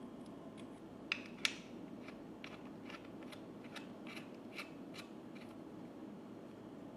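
A string of short sharp clicks: two louder ones about a second in, then lighter ones at about two a second.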